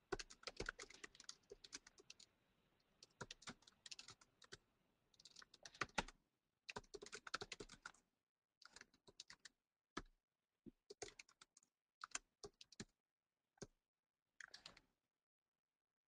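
Faint typing on a computer keyboard: quick runs of keystrokes broken by short pauses, thinning to a few single taps near the end.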